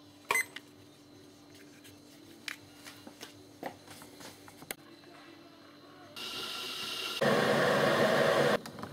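A digital kitchen timer gives one short beep as it is started, followed by a few light clicks. From about six seconds in, a Morphy Richards 3 kW electric kettle heats its water with a steady hiss and rumble, which becomes much louder for a second and a half near the end.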